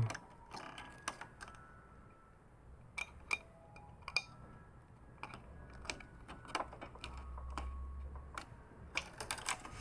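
Scattered light clicks and taps of small plastic printer parts and ribbon-cable connectors being handled, with a few sharper clicks about three to four seconds in.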